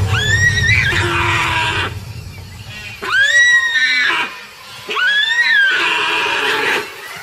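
A deer in the grip of a crocodile gives three shrill distress calls, each rising and then falling away, with splashing between them.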